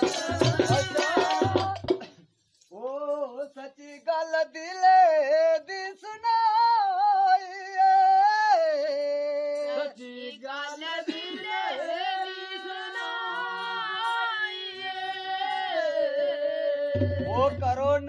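A solo voice sings a Dogri folk song unaccompanied, in long held, ornamented notes. Percussion plays for the first two seconds, stops, and comes back in near the end.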